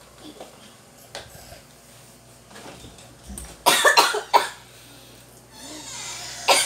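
A man coughing, a short run of three or four coughs about halfway through and one more near the end, with a few faint clicks before them.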